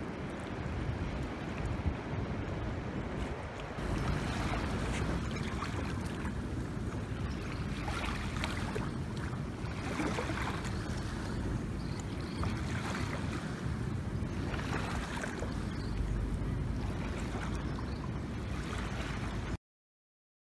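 Small waves washing gently onto a sandy shore in soft surges every few seconds, with wind rumbling on the microphone. The sound cuts off suddenly near the end.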